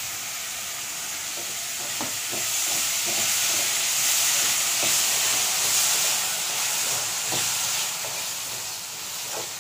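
Chopped tomatoes and onions sizzling in hot oil in a metal kadai, stirred with a wooden spatula that knocks and scrapes against the pan a few times. The sizzle grows louder about two seconds in and eases off near the end.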